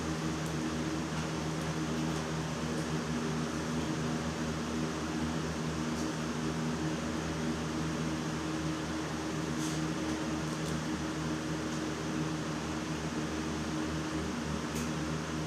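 Electric fan running with a steady hum, with a few faint clicks now and then.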